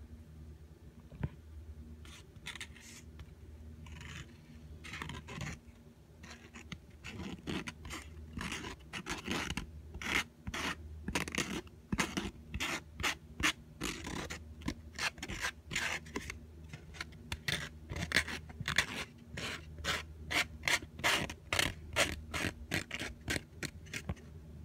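A toothpick scraping and stirring a lump of microwaved glue-and-salt mixture in a small container, in short repeated strokes that come about two a second after the first few seconds, over a low steady hum.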